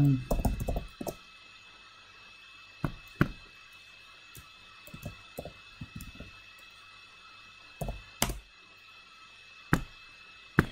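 Computer keyboard being typed on: scattered sharp key taps and clicks, with a quick run of keystrokes about four to six seconds in.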